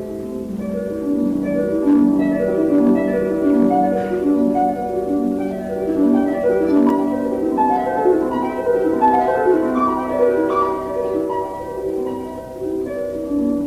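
Instrumental music: a steady stream of ringing, plucked-sounding notes in quick succession, harp-like in character.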